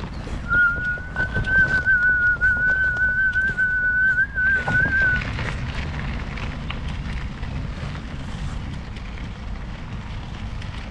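A person whistling one long, held note with a slight waver, lasting about five seconds, over a steady low rumble.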